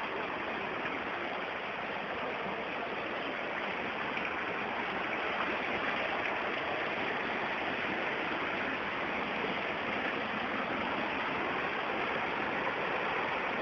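Steady, even rush of flowing floodwater.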